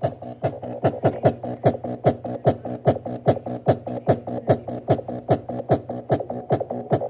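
Electronic dance music with a fast, steady kick drum and hi-hats, played through a small homemade speaker box with a 2-inch driver as a sound test.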